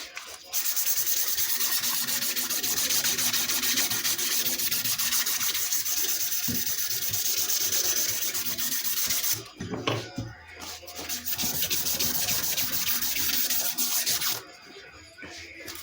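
Sandpaper rubbed by hand in quick, even back-and-forth strokes on the steel handles of vintage lineman's pliers, in one long spell of about nine seconds, a brief pause, then a shorter spell that stops about a second before the end.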